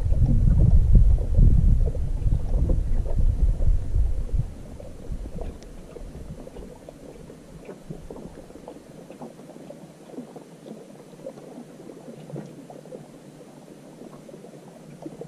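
Wind gusts buffeting the microphone with a loud low rumble, which drops after about four seconds. What follows is much quieter: many small ticks and light water sounds.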